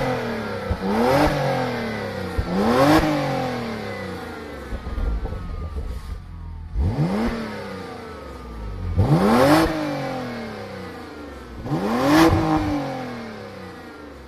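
Porsche Macan Turbo's twin-turbo V6 at the exhaust tips, free-revved while standing still: about six sharp throttle blips, each rising quickly and falling slowly back toward idle, with a few short sharp cracks as the revs drop.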